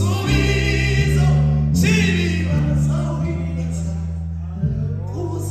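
A man singing a gospel song into a microphone, his voice bending in pitch over instrumental accompaniment of long held low bass notes that change every second or so.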